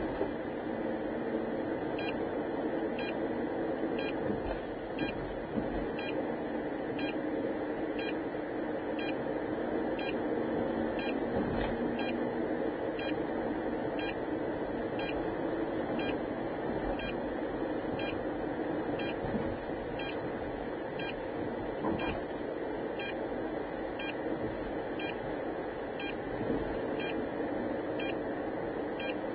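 Steady road and engine noise heard inside a moving car, with a short high electronic beep repeating about once a second.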